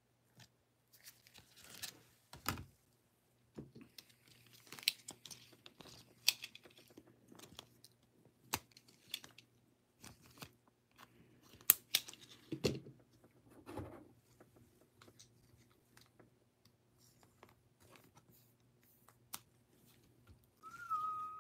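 Plastic packaging and card sleeves crinkling and rustling under gloved hands, with scattered sharp clicks and taps as a trading card is taken from its bag. A brief high whistle-like tone sounds near the end.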